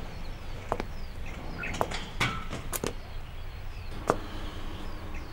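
Outdoor ambience of small birds chirping, short falling calls, over a steady low background, with a few sharp clicks scattered through. The loudest click comes about four seconds in.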